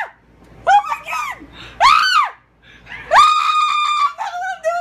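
A girl screaming in fright: two short high arching screams, then a longer held scream of about a second, ending in a lower wavering cry.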